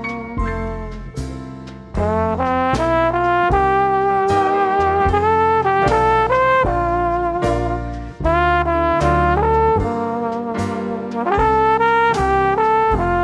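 Upbeat instrumental outro music: a brass-led melody moving in short stepped notes over a drum beat and bass.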